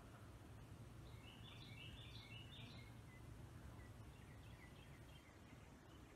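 A small bird singing faintly: a quick run of short chirping notes lasting about two seconds, then a fainter run, over a low steady hum.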